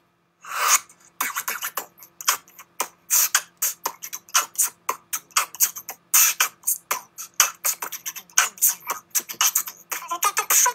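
Beatboxing: a fast, steady rhythm of sharp mouth-made clicks and hisses that starts about half a second in.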